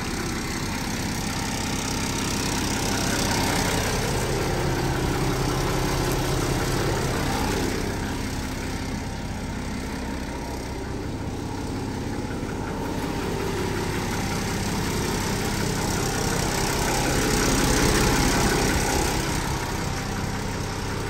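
Unimog 416's inline-six diesel engine idling steadily, driving its onboard air compressor to build the air tank back up to pressure.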